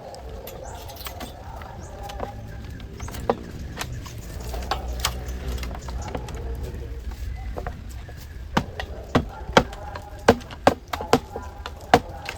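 Sharp knocks of hand-tool strikes on building material, scattered at first, then coming strongly at about two a second in the second half.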